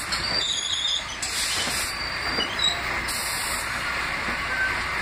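Westinghouse-Amrail R68 subway cars rolling along the track, a steady rumble of wheels on rail with two short high hisses, about a second in and again about three seconds in.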